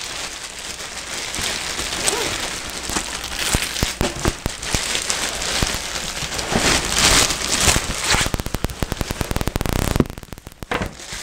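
Clear plastic wrapping crinkling and crackling as it is pulled and bunched off a large fabric bag; the dense crackle drops away about ten seconds in as the bag is lifted free.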